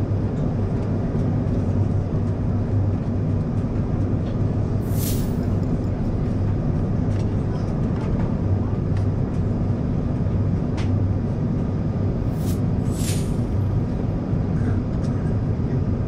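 Steady cabin noise inside an Airbus A380 descending to land: an even rush of airflow and engine rumble from its Engine Alliance GP7200 turbofans, with a low steady hum. A few brief high swishes are heard about five seconds in and again around the thirteen-second mark.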